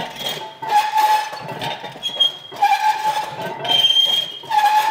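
Reverse hyperextension machine squealing as its weighted pendulum swings through each rep: drawn-out metal squeaks, one about every second, alternating between a lower and a higher pitch.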